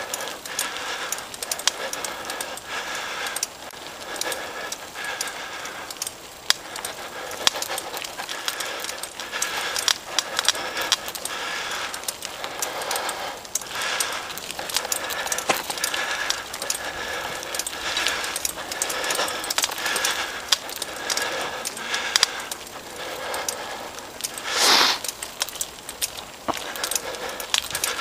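Mountain bike rattling and clattering continuously as it climbs over a rocky, gravelly dirt trail, with one louder jolt about three seconds before the end.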